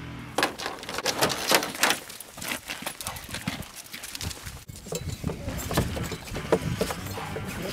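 Metal chain leads and snaps clinking, and dogs' claws clicking on pavement, as coonhounds are handled on leads: an irregular run of small clicks and jingles.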